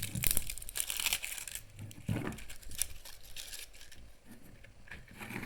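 Packaging crinkling and tearing as a slime container is opened, busiest in the first second and a half and then quieter handling.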